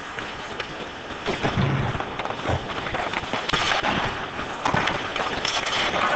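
Ice hockey play along the boards: many sharp clicks, scrapes and knocks from skates and sticks on the ice, with a few heavier thuds against the boards and glass, over steady rink noise.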